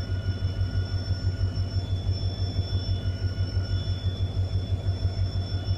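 Train locomotive engine running, heard from the cab as a steady low throb with a fast, even pulse, with faint steady whining tones above it.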